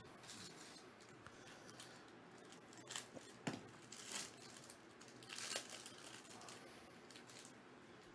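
Faint tearing and crinkling of a trading-card pack wrapper being ripped open by hand: a few short rips between about three and six seconds in, otherwise near silence.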